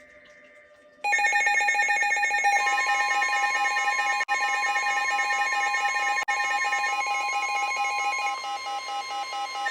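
NOAA Weather Radio alert going off about a second in: fast warbling electronic alarm beeps, joined about two and a half seconds in by the steady 1050 Hz warning tone, with two brief dropouts. The alarm signals an incoming warning, here a severe thunderstorm warning.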